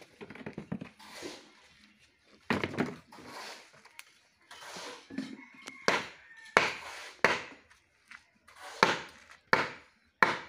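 A hand tool striking wood in a series of about seven sharp blows. They are spaced irregularly and come faster in the second half, roughly one every three-quarters of a second.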